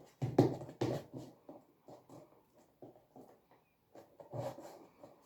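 Paper and craft materials being handled on a table: irregular rustles, light taps and knocks, busiest in the first second and again near the end.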